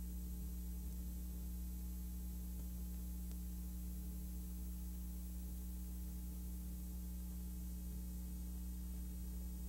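Steady low electrical hum with a faint even hiss and nothing else: the empty audio track of a silent film transfer.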